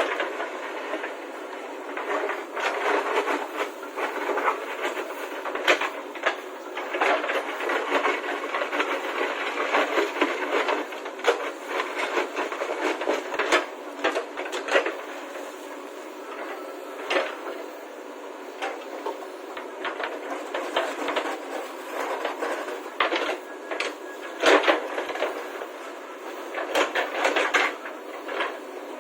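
Irregular clattering and knocking over a steady mechanical rattle, with sharp clicks every second or so.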